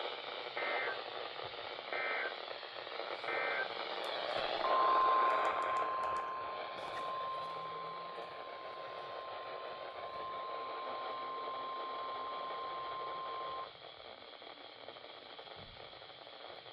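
Emergency Alert System broadcast tones: three short bursts of SAME digital data tones, each a fraction of a second long, then a steady 1050 Hz weather-radio alert tone lasting about nine seconds and cutting off suddenly, all over steady radio hiss.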